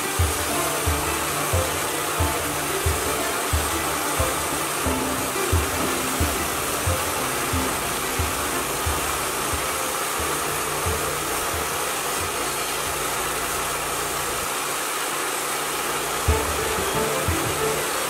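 Wood-Mizer LT-40 band sawmill running, a steady whooshing noise of the engine and band blade, under background music with a steady beat.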